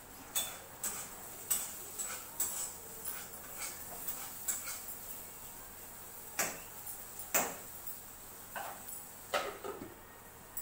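Metal spatula knocking and scraping against an iron kadhai as frying vegetable slices are stirred: irregular clinks, roughly one a second, over a low steady background.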